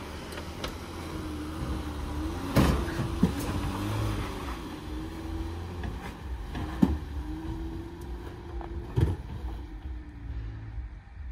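Jeep Gladiator Rubicon's engine running at low revs as the truck climbs a sandy rock slope, its pitch wavering up and down, fading as it pulls away near the end. A few sharp knocks stand out above the engine.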